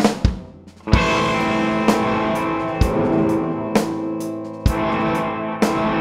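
Electric guitar, a Gibson Les Paul Custom played through a Hologram Dream Sequence effect pedal, holding chords over a live drum kit that lands heavy hits about once a second. The band drops away briefly and comes back in with a big hit about a second in.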